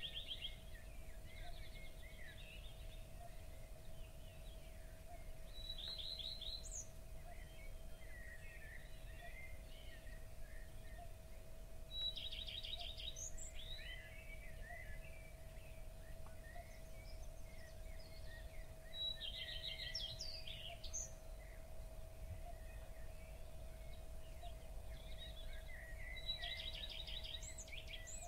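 Songbirds singing: one repeats a short phrase of rapid notes about every seven seconds, with other birds chirping between. A faint steady tone and a low rumble sit underneath.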